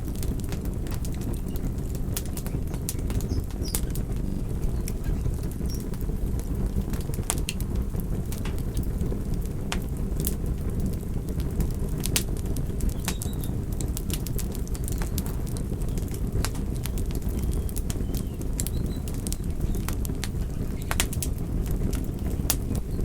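Campfire burning: a steady low rush of flames with frequent sharp, irregular crackles and pops from the wood.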